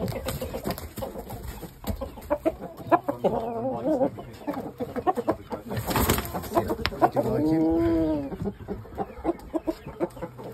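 Chickens clucking in short repeated clucks, with a drawn-out call about three seconds in and a longer call that rises and falls in pitch about seven seconds in. A brief rustle about six seconds in.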